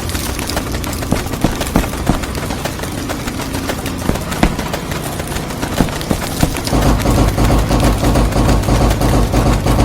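Wood chipper running and chewing up wood: a steady motor rumble under rapid, irregular cracking and splintering, which gets louder and heavier about seven seconds in.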